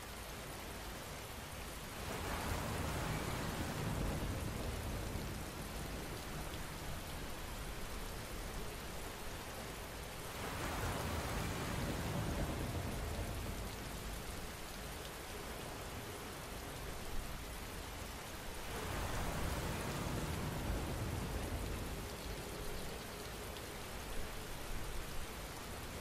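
Steady rain falling, swelling louder three times, with a few sharper drop impacts standing out.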